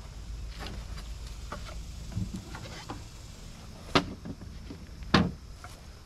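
Wooden beehive boxes and cover being handled and shifted: scattered light clicks, then two sharp knocks about a second apart near the end.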